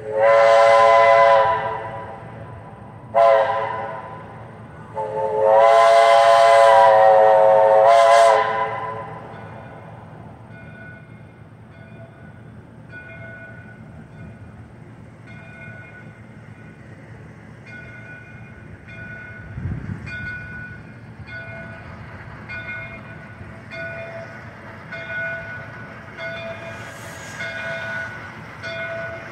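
J. Neils Lumber Co. Shay No. 5's Chinese five-chime steam whistle sounding a chord: a long blast, a short one, then a longer blast that sags slightly in pitch as it ends. After that, the locomotive's bell rings about once a second as the train approaches.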